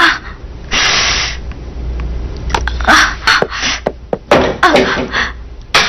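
A person crying: short sobbing cries and sharp breaths, with a brief noisy burst about a second in.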